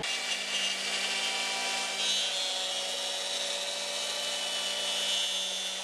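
CNC router spindle with a quarter-inch flat end mill machining a maple board, a steady high whine over the hiss of cutting, with the shop's central dust-collection vacuum running along with it.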